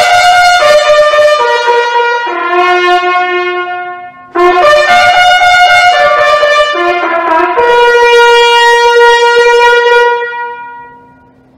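Solo trumpet playing a short melody in two phrases, with a brief break about four seconds in; the second phrase ends on a long held note that fades out near the end.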